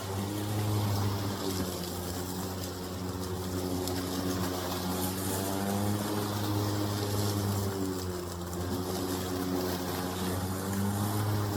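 Ryobi 40 V battery lawn mower running steadily while picking up leaves, its hum rising and dipping slightly in pitch.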